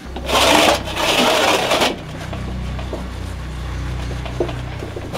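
Water poured out of a stone cooking pot, splashing into a metal basin in two gushes. Then a steady low machine hum, with a light knock of stone on the metal basin.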